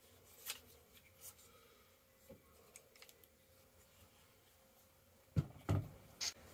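Soft clicks and rustles of a Black Bunker BM8 .22 breakbarrel air rifle being turned over in the hands, then two heavy thuds and a sharp click near the end as the rifle's synthetic stock is laid down on the table.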